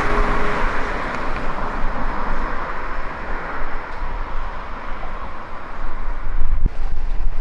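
Street traffic noise: a passing vehicle's rushing sound, strongest in the first few seconds and then fading, with low rumbles near the start and the end. A steady hum stops within the first second.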